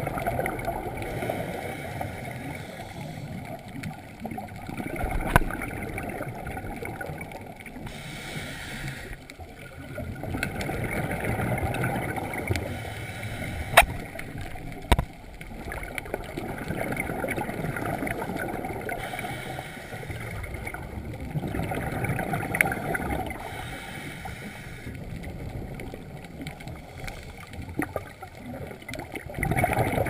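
Muffled underwater sound through a camera housing: a scuba diver's regulator breathing, its exhaled bubbles gurgling in waves every few seconds. A few sharp clicks stand out.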